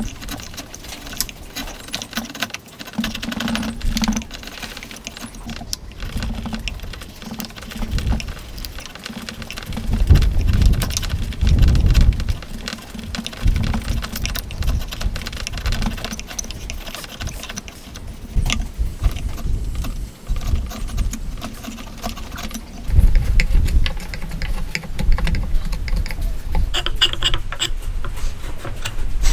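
Chisel paring wood inside a mortise by hand: rapid crisp scraping and crackling of wood fibres being sliced, with heavier dull knocks around ten seconds in and again near the end.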